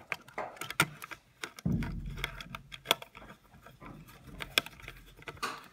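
Screwdriver clicking and scraping on the screws of a screw-terminal block as the power wires are clamped down on the laser's control board: scattered sharp metallic clicks, with a low rumble of handling through the middle.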